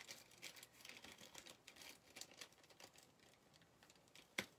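Faint crinkling and light, irregular clicks of jewelry and small items being handled on a tabletop, with one sharper click near the end.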